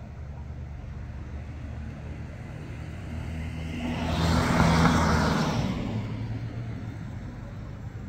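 A car passes by: its tyre and engine noise swells to a peak about halfway through and fades over about three seconds, over a steady low hum.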